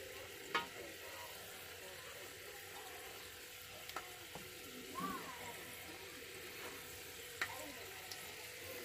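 Marinated chicken pieces being handled in a bowl of wet marinade: faint wet stirring sounds over a steady hiss, with a few light knocks.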